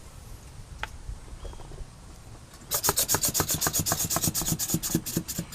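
A fast run of rasping, rubbing strokes, about ten a second, starting about halfway in and lasting roughly two and a half seconds.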